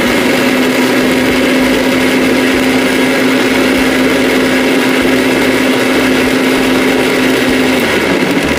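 Jyoti electric mixer grinder running with its steel jar, blending cold coffee: a loud, steady motor hum over churning noise. Near the end the hum slides down in pitch.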